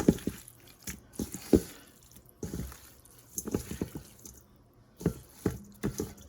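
Knife cutting raw jumbo shrimp in half on a cutting board: a series of irregular knocks with wet, squishy handling sounds.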